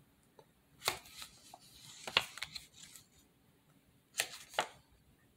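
A few sharp clicks and taps with light rustling between them: one about a second in, another about two seconds in, and two close together near the end.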